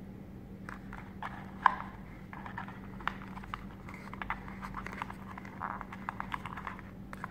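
Fingers and fingernails handling a cardboard phone box and its inserts: a string of small, irregular clicks, taps and rustles, with one sharper click a little under two seconds in. A steady low hum runs underneath.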